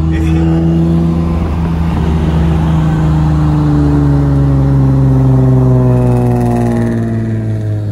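Nissan Z sports car's V6 engine and exhaust running at a steady low speed, its pitch slowly falling as engine speed eases off.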